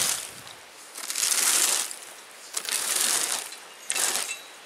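Fan leaf rake scraping over gravel and dry campsite debris in repeated strokes, about one every second and a half, the last one shorter.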